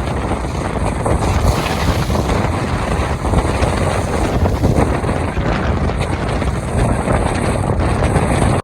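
Steady wind buffeting the microphone over the rush of wind and sea aboard a sailing catamaran under way.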